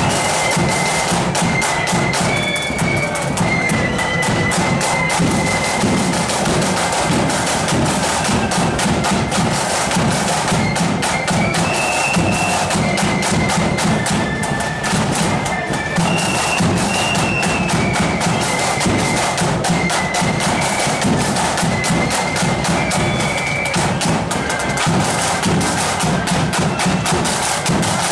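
Marching flute band playing a tune on flutes over side drums and a bass drum beating time.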